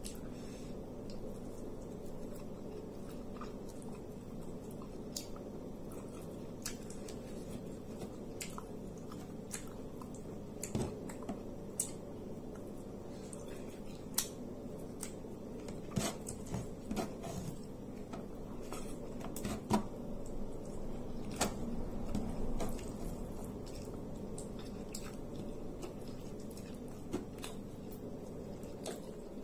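Close-up eating sounds: a person chewing soft food (tiwul cassava rice and fish eaten by hand), with many small wet clicks and smacks of the mouth, busiest past the middle. A steady low hum runs underneath.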